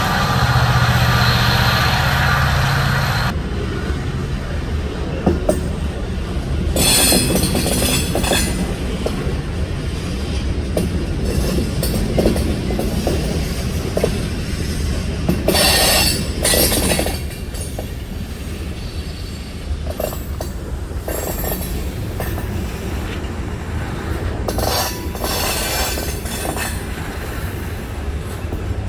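A freight train passing. The diesel locomotive's engine drone stands out for the first three seconds or so, then railcars roll by with wheel clatter and several high-pitched bursts of wheel squeal.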